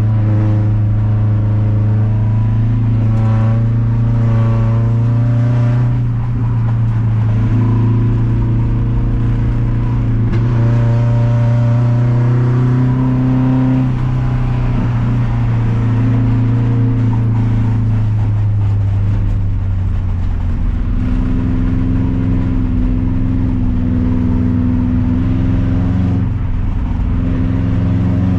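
Subaru Forester XT's turbocharged EJ25 flat-four engine running through a lap, its speed dropping and rising a few times. The engine is failing: the stock TD04 turbo has blown and a rod bearing has gone, which the driver takes for hard misfiring.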